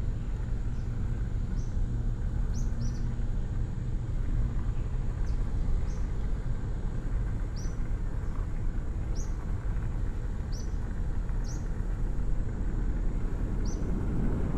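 Steady low vehicle rumble, with a bird giving short high chirps every second or so.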